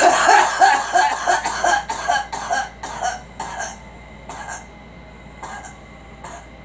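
A girl coughing in a long fit: a rapid run of coughs, loudest at first, that thins out after about four seconds into a few weaker, spaced-out coughs.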